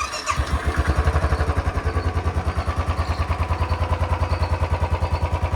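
Royal Enfield Bullet 350's single-cylinder engine starting and settling into a steady idle with an even beat. No tick is heard: the owner judges the engine sound stock since new piston rings were fitted.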